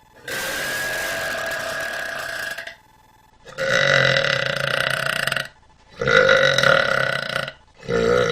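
A person belching repeatedly: three long, drawn-out burps of about two seconds each with short pauses between, the first raspier, and a fourth beginning near the end.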